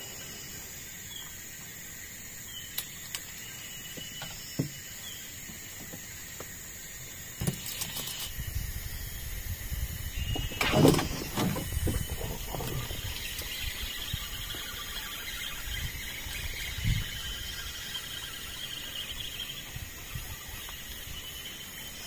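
Jungle river ambience: a steady high-pitched insect drone, with a few light knocks early on. From about seven seconds in, gusty low rumbling sets in, loudest around eleven seconds.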